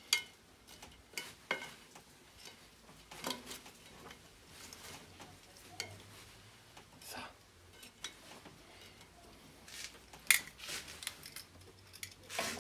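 Metal grill tongs clinking and knocking as charcoal briquettes are set down on a cast-iron Dutch oven lid: scattered light clicks, irregularly spaced, a sharper one just at the start and another about ten seconds in.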